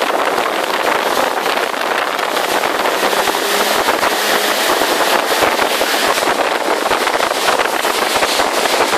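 Jet ski running at speed: a steady, loud rush of engine, water jet and spray, with wind buffeting the microphone.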